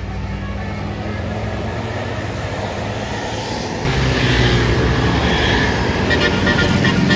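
A large bus's engine running as it passes close, getting louder with a sudden rise about four seconds in, then short repeated horn toots from its basuri telolet horn starting near the end.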